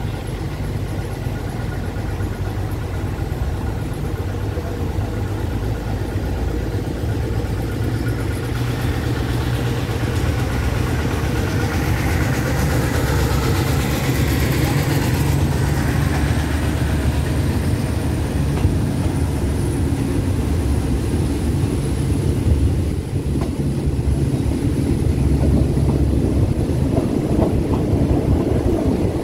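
Diesel train engine running with a steady low drone, growing louder as the train moves off from the station. A thin high whine slowly rises in pitch over the second half.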